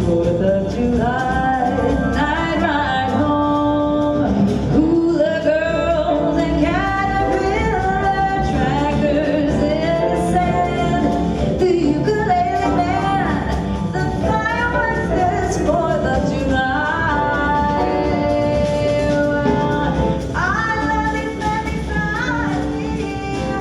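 Female jazz vocalist singing a sustained, gliding melody line, accompanied by a jazz quartet playing live.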